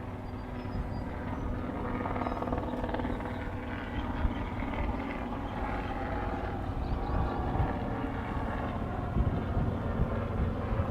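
Steady engine drone, a low even hum with a few faint high chirps over it in the first few seconds.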